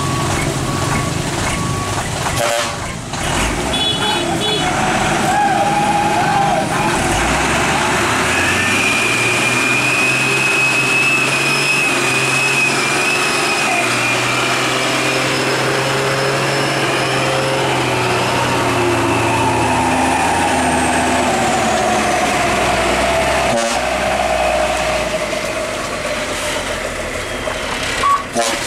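Heavy diesel dump truck engine revving hard under load as one truck tries to pull another out of deep mud. The revs come up about eight seconds in and are held high for some twelve seconds before easing off.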